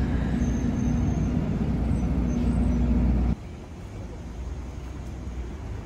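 Road traffic: a motor vehicle's engine running with a low rumble and a steady hum. It cuts off abruptly a little over three seconds in. Quieter street ambience follows.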